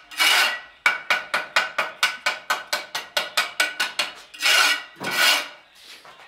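Steel trowel working tile mortar on a concrete floor: a scrape, then a fast run of sharp, faintly ringing taps, about six a second for some three seconds, then two more scrapes.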